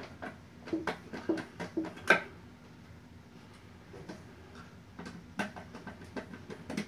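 Irregular light clicks and taps of hands driving a screw into the edge of a flat-pack desk panel, a loud knock about two seconds in, then a quieter stretch before the clicking resumes.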